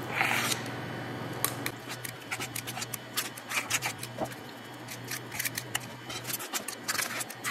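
Spring-loaded metal scoop scraping thick muffin batter from a stainless steel bowl, its release lever clicking as portions drop into a muffin tin: a run of irregular short clicks and scrapes over a faint steady low hum.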